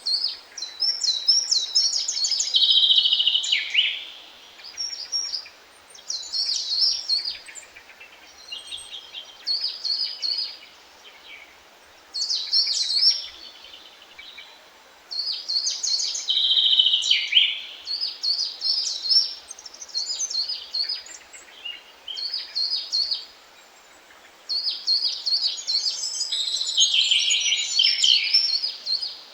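A songbird singing, repeating a song phrase every few seconds with short pauses between; each phrase is a run of high notes, several ending in a lower, falling run. A faint steady hiss lies beneath.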